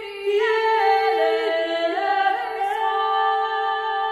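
Choir singing sustained notes in harmony, without accompaniment, moving to a new chord every second or so.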